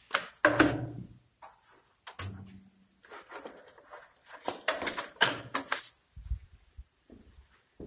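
Irregular knocks and clatters in an empty room, with two deep thumps about six seconds in.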